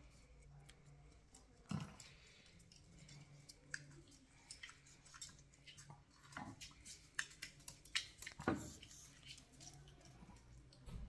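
Small dogs playing on a wooden floor: faint irregular clicking and tapping, with three louder thumps.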